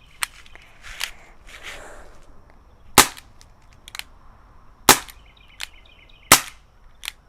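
Umarex .44 Magnum CO2-powered BB revolver firing three sharp shots, about one and a half to two seconds apart, with lighter clicks in between.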